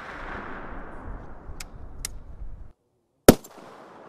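Barrett M82/M107 .50-calibre rifle fire: the echo of a shot rolls away and cuts off abruptly to silence. About three quarters of the way in comes another very loud, sharp shot, whose echo trails off.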